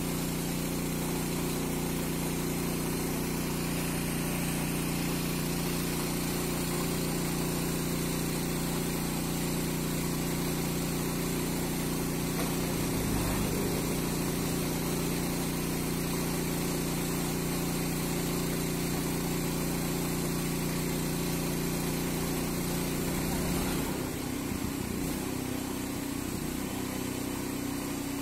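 An engine running steadily, its note changing near the end.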